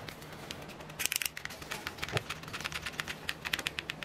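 Paper packet of strawberry flavoring powder crinkling and crackling in the hand, in a quick run of small crackles from about a second in, as it is squeezed open and the powder is shaken out.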